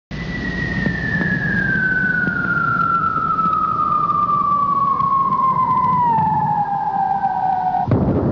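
American fire truck siren in one long, slow wail that slides steadily down in pitch over the rumble of the truck's engine, then cuts off abruptly near the end.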